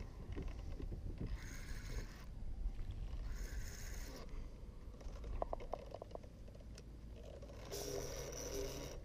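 Wind rumbling on the microphone and water around a kayak while a fish is fought on a spinning rod. Short scraping hisses come three times, and a quick run of small clicks a little past halfway.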